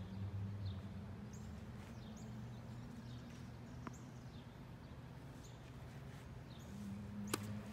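Outdoor ambience: faint, short bird chirps scattered over a steady low hum, with a single sharp knock near the end.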